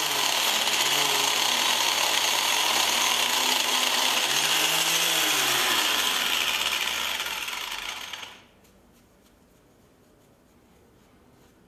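Rotary power tool with a foam sanding pad running against a stone block, a steady grinding hiss that cuts off abruptly about eight seconds in.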